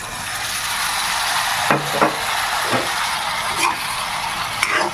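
Curry frying in a hot pan: a steady sizzle, with several short knocks and scrapes of a stirring utensil against the pan.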